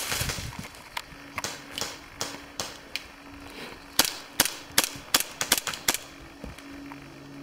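Airsoft guns firing: a dozen or so sharp, snapping cracks, loosely spaced at first, then coming quicker and loudest between about four and six seconds in.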